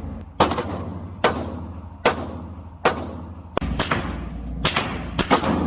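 .22 rimfire gunshots, about eight single shots at a steady pace of roughly one a second, coming a little quicker near the end.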